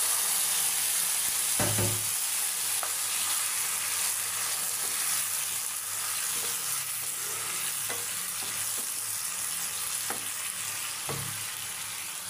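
Tomato paste sizzling as it fries in hot ghee with onions and spices, being stirred with a wooden spoon that knocks against the pan a few times. The sizzle is loudest just after the paste goes in and slowly eases as the masala cooks down.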